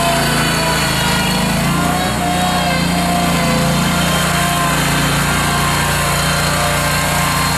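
Honda GX620 air-cooled V-twin gas engine of a Terrimite T5C backhoe loader running steadily while the machine is worked, with a higher whining tone that comes and goes.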